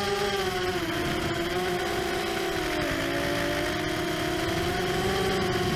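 Four brushless motors and propellers of an ImmersionRC Vortex 250 Pro racing quadcopter whining in flight, recorded onboard, over a steady rush of air. The pitch sinks from about a second in, is lowest around halfway, and rises again near the end as the throttle eases off and picks back up.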